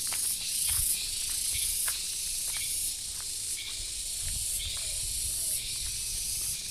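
Loud, high-pitched chorus of insects buzzing, swelling and dropping in a regular pulse about once a second, with a few faint ticks.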